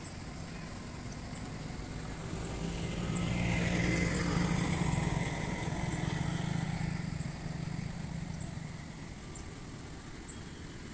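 A motor vehicle passing by: its engine and tyre noise build to a peak about four seconds in, then fade away, over a steady outdoor background.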